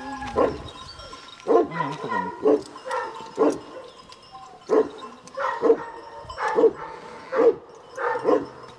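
Kangal shepherd dogs barking, about a dozen barks coming singly and in quick twos or threes at an uneven pace.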